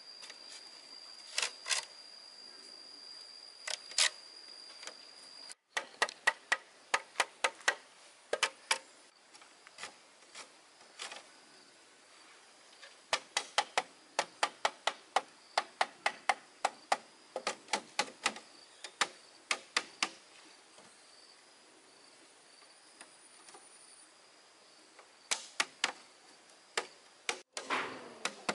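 Bursts of sharp, rapid knocks, about three or four a second, from something being struck over and over, broken by pauses. A steady high insect whine runs under the first few seconds.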